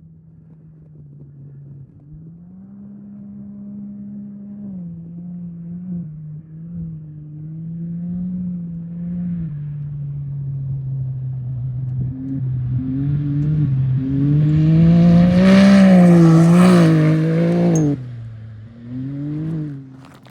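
Off-road race vehicle's engine approaching, revving up and down as it works over the terrain and growing steadily louder, peaking as it passes close. The sound drops off sharply about eighteen seconds in, followed by a brief burst of revving.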